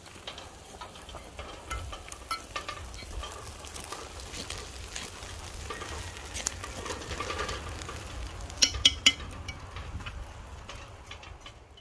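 A spoon stirring and scraping gungo rice in a cooking pot, with a light sizzle from the pot. A few sharp knocks, the loudest sounds, come about three-quarters of the way through.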